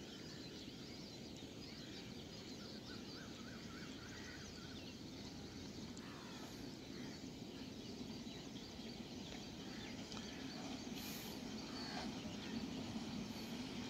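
Faint low rumble of an approaching EMU electric local train, growing slowly louder as it nears, with birds chirping now and then.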